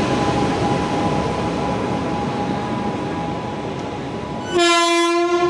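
WAG-9H electric locomotive and its coaches passing close by: a steady rumble of wheels on rail joints with a faint steady whine. A loud, single-pitched train horn blast cuts in near the end.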